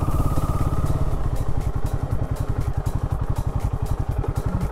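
Royal Enfield Himalayan 450's single-cylinder engine running at low revs with an even beat of firing pulses, easing down to idle as the bike comes to a stop.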